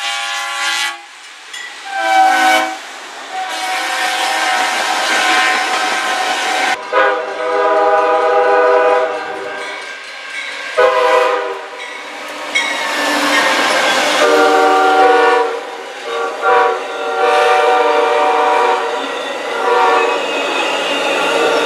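Diesel locomotive air horns, a CN freight engine's and then an Amtrak passenger engine's, sounding a series of long and shorter chord blasts, with abrupt changes where one train's sound gives way to the next. Between the blasts, the rumble and wheel clatter of the passing train.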